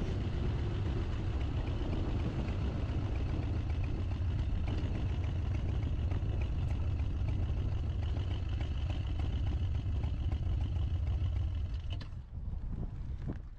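Motorcycle riding sound: a steady low engine rumble mixed with wind and road noise as the bike moves, including onto a gravel pull-off. The sound drops sharply about twelve seconds in and fades away.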